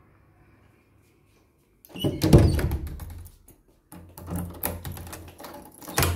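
A loud thump about two seconds in, then a clatter of sharp clicks and knocks in a small room.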